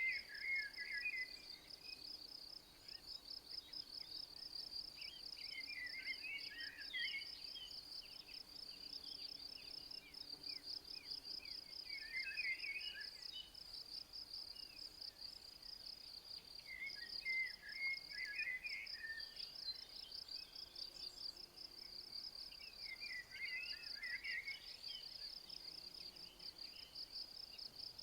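Insects chirring: a steady, high, fast-pulsing trill without a break. Over it a songbird repeats a short twittering song phrase about every five to six seconds.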